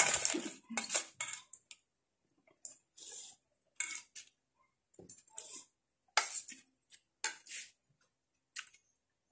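A metal spoon clinking and scraping against a stainless steel bowl of snails in coconut milk, with snail shells knocking together, in short scattered sounds that are busiest in the first second or so.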